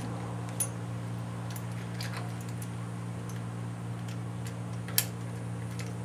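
Small metal clicks and taps of stock rocker arms and fulcrums being fitted by hand onto the cylinder head of a Ford 302 V8, the sharpest click about five seconds in, over a steady low hum.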